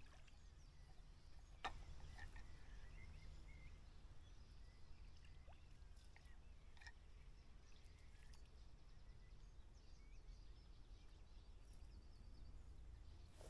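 Quiet riverside ambience, near silence: a few faint bird chirps over a low steady rumble. One short sharp click comes about a second and a half in.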